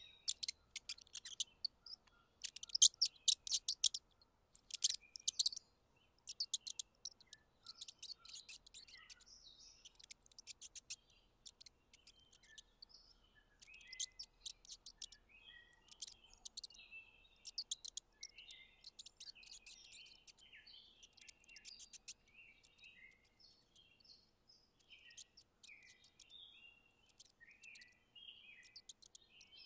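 Mouse nibbling dry crumbs: runs of quick, crisp clicks in bursts, with short faint high chirps between them. The clicking thins out over the last several seconds, leaving mostly the chirps.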